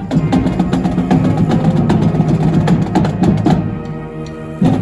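Live brass band with drums playing a lively tune, the drums marking a steady beat. Near the end the drumming drops away under a held, quieter note, then the full band comes back in.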